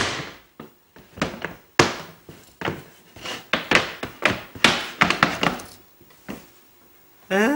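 Wooden deckchair frame clacking and knocking as it is wrestled with, a quick irregular string of sharp wooden knocks that stops shortly before the end.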